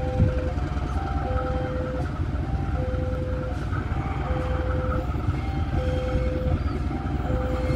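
Level-crossing electronic warning chime sounding over and over, a longer low tone followed by two short higher tones about every one and a half seconds, over the steady low rumble of the CC 203 diesel locomotive approaching at low speed.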